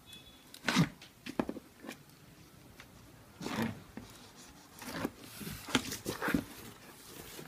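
Packing tape ripping and cardboard flaps being torn open on a parcel, in several short, harsh pulls.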